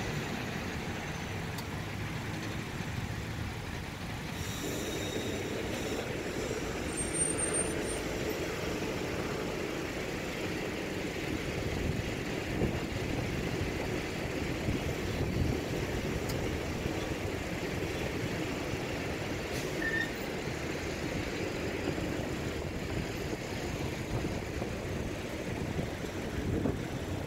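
Slow road traffic: cars rolling past at low speed, their engines and tyres making a steady rumble.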